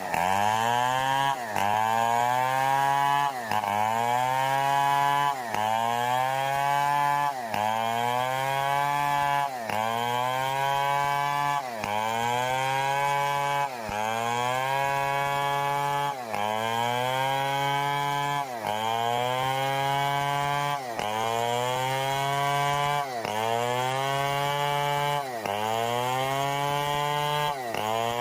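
Stihl 070 two-stroke chainsaw cutting wood at high revs. Its engine pitch drops sharply and climbs back up about every two seconds as the chain bites into the wood and recovers.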